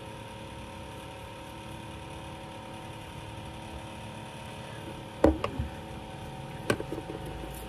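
A steady machine hum in the background, with two sharp knocks, one about five seconds in and another a second and a half later.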